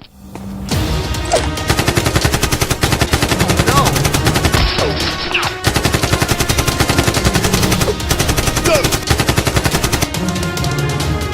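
Rapid automatic gunfire sound effects, many shots a second in long bursts, over action background music.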